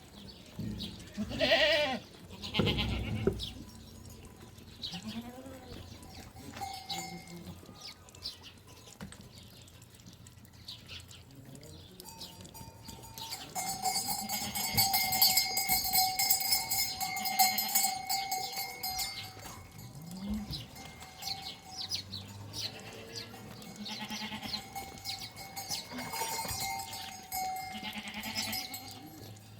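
Bells on a herd of livestock ringing and clanking, loudest in the middle stretch, with an animal bleating now and then, loudest about two seconds in.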